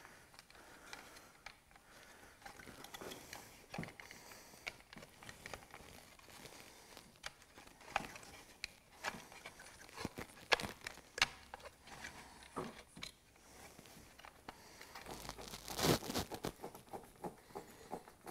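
Light handling noises from a trolling motor head being reassembled: scattered small clicks, taps and rustles of plastic housing parts and coiled wiring. There are a few sharper clicks around the middle and a louder rustling clatter near the end.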